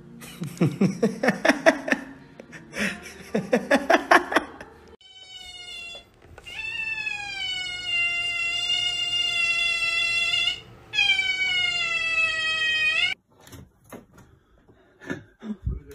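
Two short bouts of rapid, pulsing chatter, then a cat yowling in three long, drawn-out calls, the middle one about four seconds long. A few soft knocks near the end.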